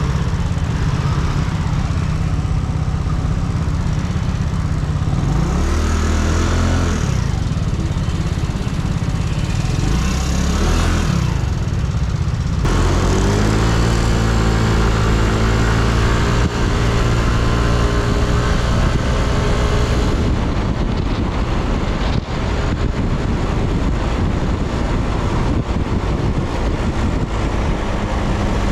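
Yamaha Cygnus X scooter's single-cylinder 125 cc four-stroke engine under way. It rises in pitch twice as it gathers speed, then makes a longer climb about halfway through that levels off into steady cruising, over a constant rush of wind and road noise.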